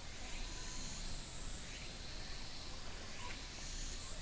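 Outdoor insect chorus: a steady high-pitched drone with higher shrilling that swells and fades about once a second, over a steady low rumble.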